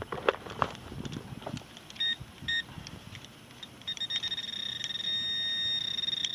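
Handheld metal-detecting pinpointer alerting on a metal target. There are two short beeps about two seconds in. From about four seconds a rapid pulsing tone runs together into a steady, high tone that grows louder as the probe closes on the target. Before the beeps there are a few clicks and scrapes of handling in the dirt.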